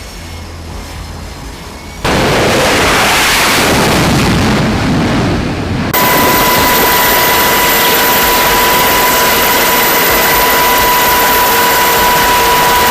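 Jet aircraft engines running at high power: a loud, steady rush with a whine, jumping suddenly louder about two seconds in and again about six seconds in.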